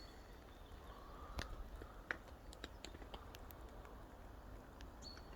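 Light rain: sparse, irregular raindrops ticking faintly on the tent's fabric fly.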